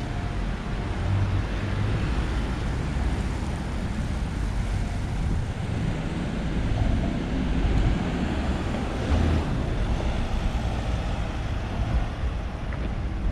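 Steady city street traffic noise, a low rumble of passing cars and other vehicles.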